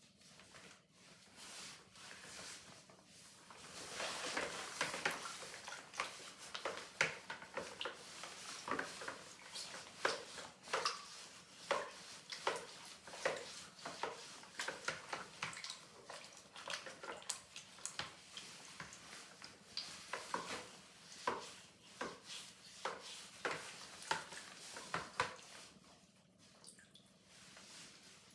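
Water dripping and splashing, with many irregular small clicks and knocks that start about four seconds in and thin out near the end.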